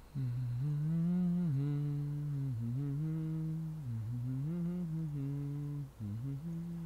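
A man humming a tune with his mouth closed, the pitch stepping up and down, with a brief break about six seconds in.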